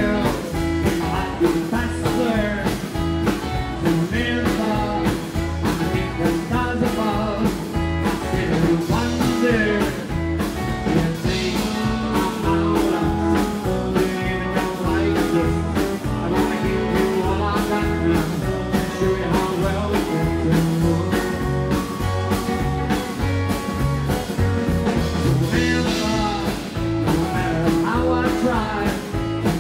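Live rockabilly band playing: Telecaster-style electric guitar, upright double bass, acoustic guitar and drums, with a steady beat.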